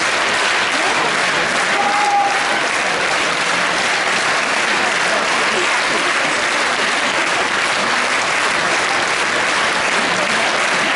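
Large theatre audience applauding steadily, a dense even clapping with no let-up.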